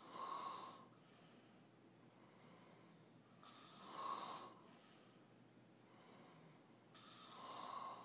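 A man snoring with his mouth open in his sleep: three snores at even spacing, about three and a half seconds apart, each under a second long.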